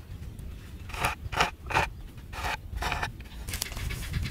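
Hands rubbing and mixing spice-marinated quail pieces in a pot: five short rubbing strokes, roughly half a second apart.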